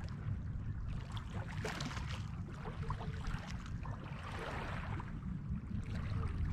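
Wind rumbling on the microphone, with small waves lapping at the lake shore and faint scattered clicks.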